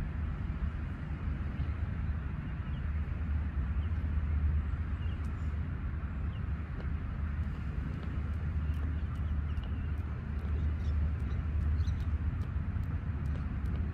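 Steady low outdoor rumble beside the sea, with a few faint bird chirps. In the second half a jump rope ticks faintly and regularly on the rock, about two to three times a second.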